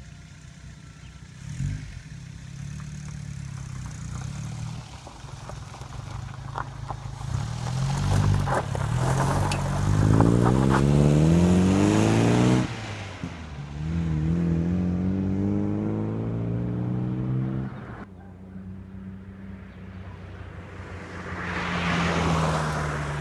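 MG TF sports car's exhaust through a new muffler: the engine idles, then revs up in two rising pulls with a sudden break between them, like a shift to the next gear, drops back to a steadier note, and swells louder with a slightly falling pitch near the end as the car comes past.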